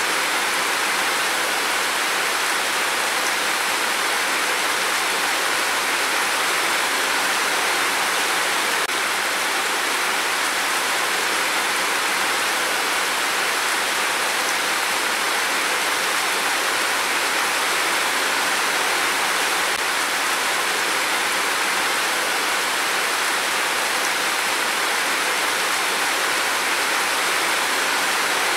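Heavy rain falling in a steady downpour, an even hiss that does not change, with no thunder.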